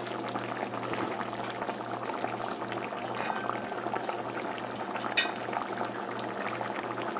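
Shrimp curry at a rolling boil in an open pot: a steady bubbling and crackling over a low steady hum, with a single sharp click about five seconds in.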